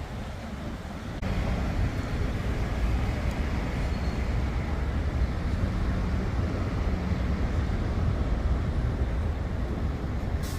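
A boat's engine running steadily with a low, droning hum, which gets louder about a second in and then holds.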